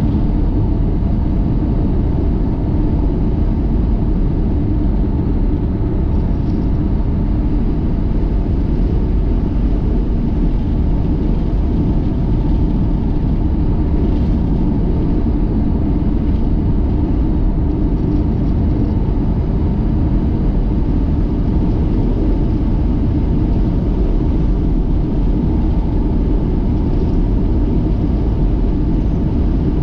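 Steady low rumble of a car driving along the road: engine and tyre noise, unchanging throughout.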